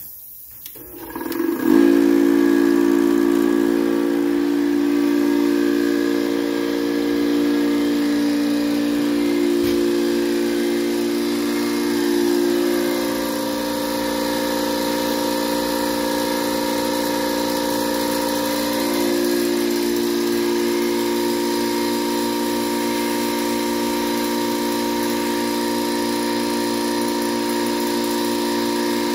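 Small portable air compressor switching on about a second in, started with no pressure on it. It then runs steadily with a loud humming drone over a hiss as it compresses biogas from an inner tube into a propane tank.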